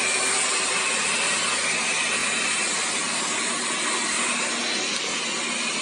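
Xiaomi Mi Robot Vacuum running its cleaning cycle: a steady whir of the suction fan and brushes.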